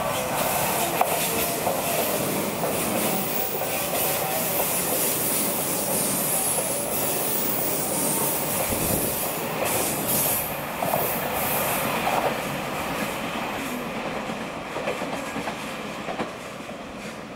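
JR West 283 series electric limited express train passing through a station: a continuous rumble and clatter of wheels on rail, with sharp clacks through the middle. It fades gradually near the end.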